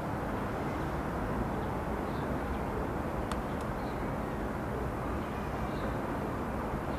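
Steady outdoor city ambience: an even low background hum of noise, with a few faint high chirps and a sharp tick or two a little past three seconds.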